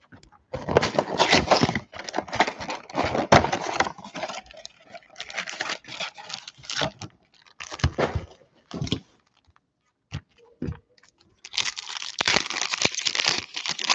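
Cardboard trading-card box (a 2020 Panini Select mega box) being torn open and its foil packs handled, with crackling and rustling in spurts. Near the end a foil card pack is ripped open with a burst of crinkling.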